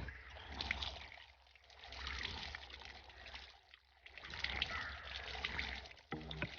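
Water trickling and splashing over a bicycle disc brake pad as it is washed clean of dust and oil with soapy water. The splashing comes and goes in a few uneven surges.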